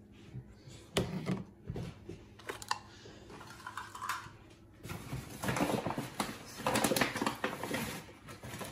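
Kitchen clatter on a tiled counter: a few separate knocks of utensils and containers, then about three seconds of rapid clicking.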